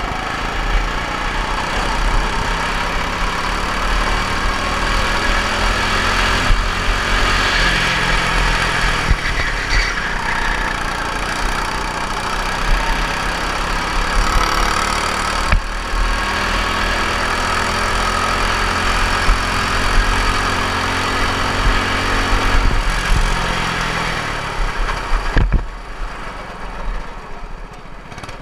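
Four-stroke racing kart engine running hard under the driver, its pitch rising on acceleration and dipping into the corners several times. Near the end the engine drops back and fades as the kart slows down.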